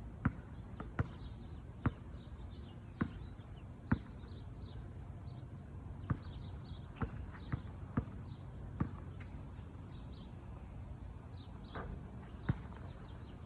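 Sharp thumps and slaps at irregular intervals, several close together early on and again in the middle: hands and feet hitting the ground during burpees.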